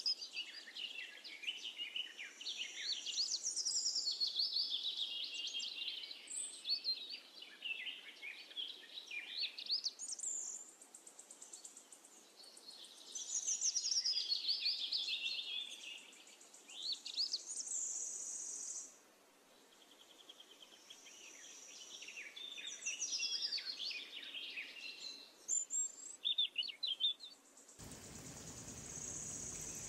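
Birds chirping and singing in rapid gliding notes, with short lulls. About two seconds before the end this gives way to the steady sizzle of kachoris deep-frying in oil.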